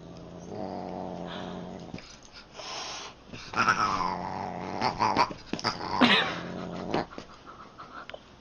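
A Siamese cat sparring with a large dog: low growling through the first two seconds, then loud yowls that rise and fall, one about three and a half seconds in and the loudest about six seconds in.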